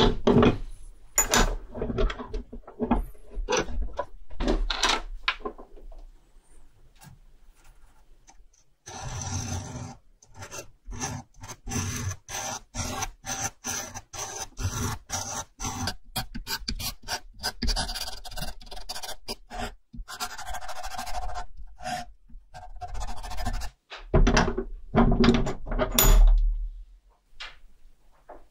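Irregular scraping and rubbing strokes of hand work on a watch part, with a quicker, denser run of strokes through the middle.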